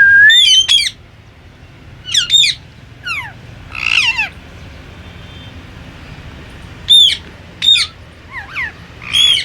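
Indian ringneck parakeet squawking: short, shrill calls in small clusters, several sliding down sharply in pitch, with a gap of a couple of seconds in the middle.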